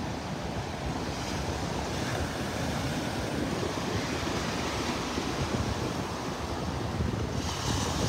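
Small ocean waves breaking and washing up the sand in a steady rush, with wind rumbling on the microphone.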